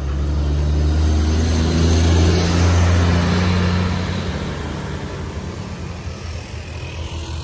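Diesel coach bus passing close by: the engine drone and tyre noise build to a peak two to three seconds in, then fade as it drives away.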